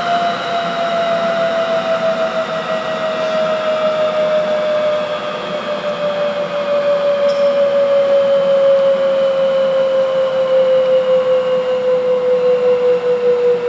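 Rolls-Royce Marine Spey SM1A gas turbine spooling down after shutdown: a steady whine slowly falling in pitch, with fainter higher tones falling alongside it.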